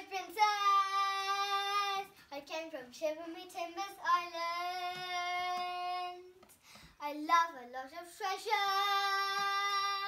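A girl singing, holding three long notes at about the same pitch, with short sliding syllables between them.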